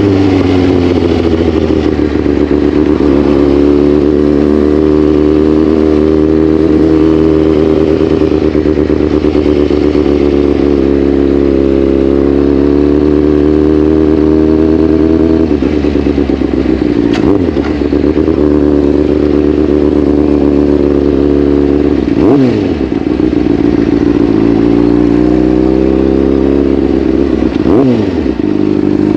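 Honda CBR600RR's inline-four engine running while the bike is ridden, its pitch rising and falling slowly with the throttle. In the second half the pitch dips sharply and recovers three times.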